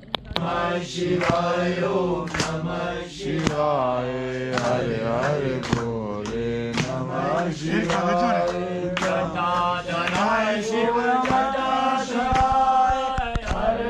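Devotional chant sung over a steady drone, with a percussion strike about once a second.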